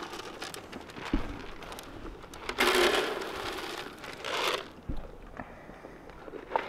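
Goat feed poured from a bag into plastic feed bins, rustling in two short bursts, one about two and a half seconds in and one about four seconds in, with a couple of low bumps in between.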